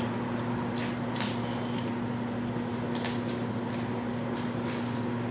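A steady low mechanical hum, with a few light clicks as fittings on an antique motorcycle are handled.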